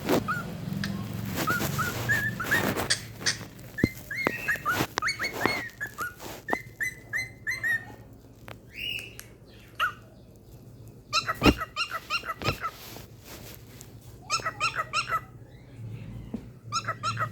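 Cockatiel chirping and whistling: short upward-gliding whistled notes at first, then fast runs of sharp repeated chirps about two-thirds of the way in and again near the end.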